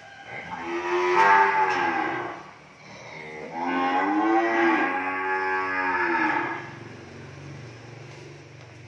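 Cattle mooing: two long, loud moos, the first about two seconds long and the second about three, each rising and then falling in pitch.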